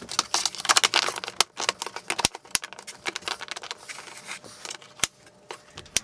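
Scattered clicks, taps and rustling of hands handling plastic parts as panel-mount power sockets are fitted into a control box's front panel. The handling is busiest in the first second or so, then thins to a few sharp single clicks.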